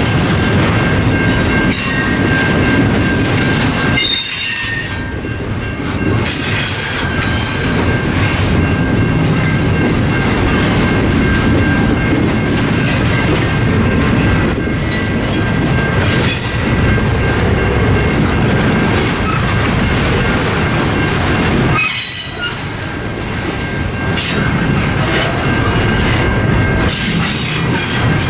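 A CSX intermodal freight train's container cars roll through a level crossing: a steady rumble of wheels on the rails, with brief high wheel squeals several times and two short dips in loudness. The crossing's mechanical bells ring on steadily underneath.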